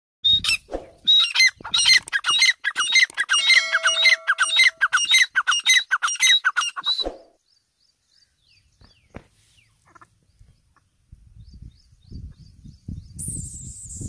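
Grey francolin calling: a loud, fast run of repeated harsh notes that stops abruptly about seven seconds in. After that, only faint high chirps and a low noise towards the end.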